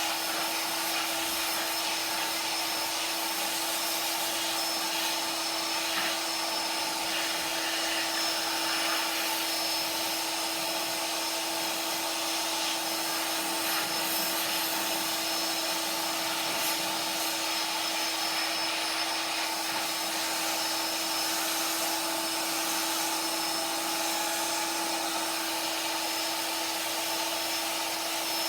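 Small electric air blower running steadily, blowing dust and residue off a cleaned graphics card's circuit board. It makes a rush of air with a steady hum underneath.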